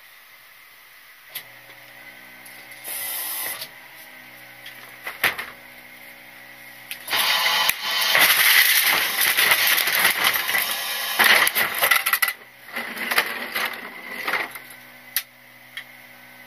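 Rear-loader garbage truck hopper at work. A steady mechanical hum starts about a second in, with a short hiss and a knock. Then comes a long stretch of loud crunching and rattling of trash in the middle, and a shorter burst after it.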